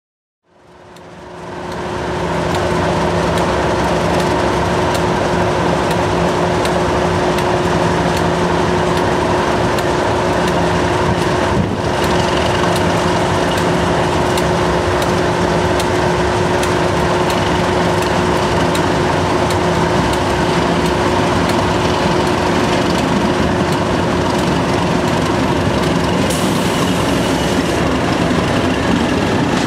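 English Electric Class 37 diesel locomotive, with its V12 engine, working under power as it approaches and passes hauling coaches: a loud, steady engine note. It fades in from silence at the start.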